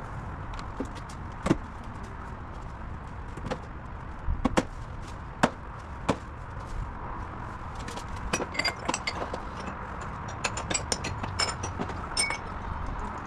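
Tools and metal parts being handled: a few separate knocks, then a busier run of light clicks and clinks in the second half, over a steady background hum.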